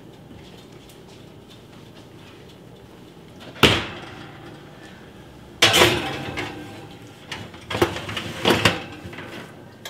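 A heavy lidded pot knocking and clattering as it is lifted off the stovetop and set onto a metal oven rack: one sharp clunk, a louder clatter with a short ring a couple of seconds later, then a few lighter knocks of the pot and lid on the rack as it is pushed in.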